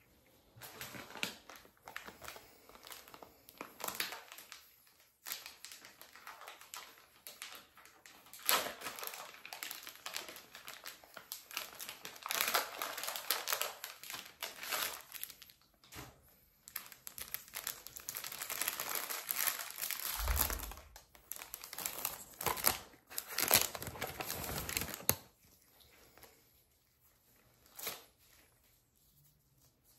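Crinkling and rustling of a sterile surgical glove wrapper being peeled open and unfolded, full of sharp crackles. It dies away about 25 seconds in, leaving only faint handling of the gloves. A single low thud comes about 20 seconds in.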